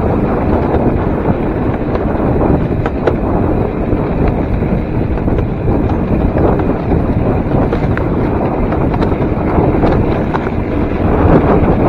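Wind buffeting the microphone over the running noise of a DIY electric railcart rolling along the rails, steady throughout, with a few faint clicks.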